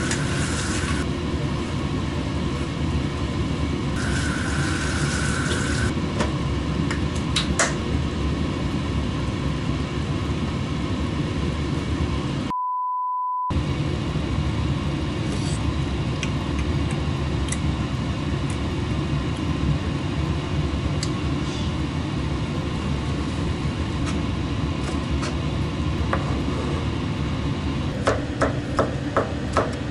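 A steady low drone of kitchen noise, cut about halfway through by a single one-second electronic beep. Near the end a knife chops quickly on a plastic cutting board, about four strokes a second.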